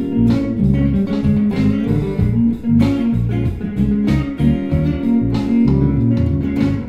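Instrumental outro music led by guitar, with bass notes and sharp percussive hits.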